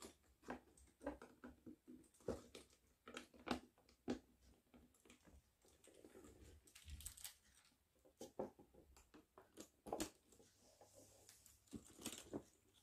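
Faint handling noises from a leather handbag being lifted out of its box: a scatter of light taps and clicks, with soft rustling of wrapping paper about halfway through and again near the end.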